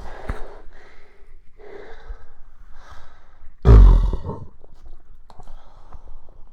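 A few short stomach gurgles, then one loud, low burp lasting under a second about three and a half seconds in, from gas after drinking soda.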